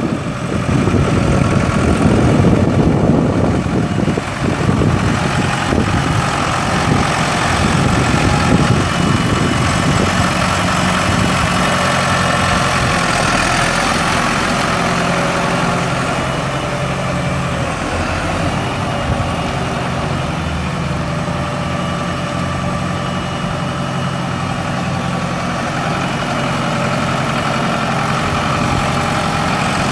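New Holland TS100 tractor's 5.0-litre four-cylinder turbo diesel running steadily as the tractor drives slowly around, rougher and a little louder for the first few seconds.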